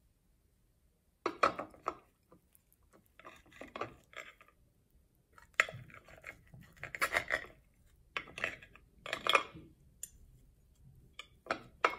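Irregular clinks, scrapes and rustles of baked pizza rolls and utensils being handled on a parchment-lined metal baking tray, starting about a second in.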